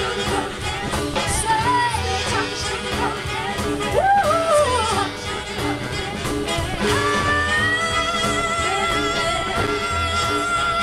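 Live swing band with drums and upright double bass backing three women singing in close harmony. About seven seconds in, the voices settle onto a long held chord with vibrato.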